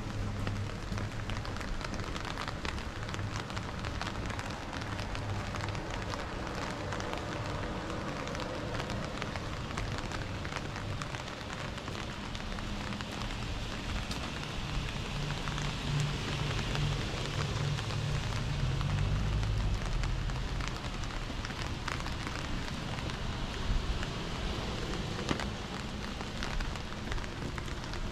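Steady rain falling, with many small drop ticks over an even hiss. The hiss swells for a few seconds about halfway through.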